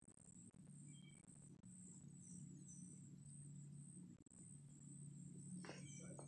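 Near silence: a faint, steady high-pitched insect drone over a low steady hum, with a few faint short bird chirps and a brief rustle near the end.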